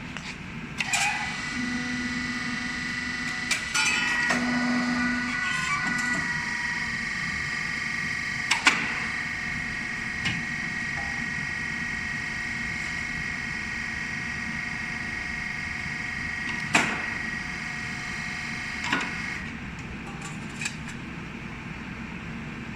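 Hydraulic shear butt welding machine running with a steady high whine, broken by a few sharp metallic clanks; the whine stops near the end.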